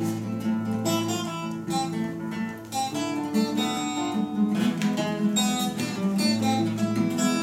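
Two acoustic guitars strumming chords together in a steady rhythm: the instrumental introduction of a song, before the voices come in.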